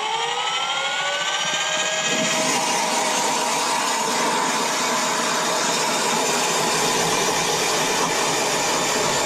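StrikeMaster electric ice auger spinning up with a rising whine, then boring steadily through thick lake ice, cutting 'like butter'. A lower rumble joins about two-thirds of the way through.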